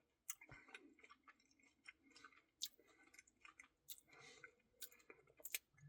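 Faint chewing and wet mouth clicks from someone eating a soft ice cream Blizzard, in scattered short clicks and smacks.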